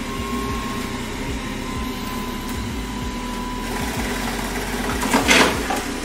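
Roborock Q7 Max+ robot vacuum starting a cleaning run on a voice command: a steady motor hum with a thin whine, and a louder, noisier surge about five seconds in.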